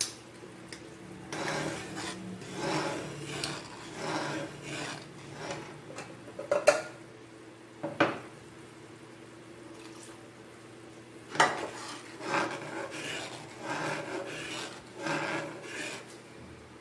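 Spatula scraping and stirring a thickening, simmering sauce in an aluminium frying pan, in repeated strokes that come in spells, with a few sharp knocks of utensil on pan.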